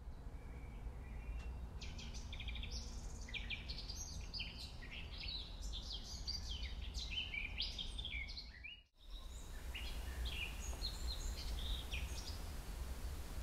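Several birds chirping and trilling over a steady low rumble. About nine seconds in, the sound drops out briefly, then the birdsong resumes more sparsely.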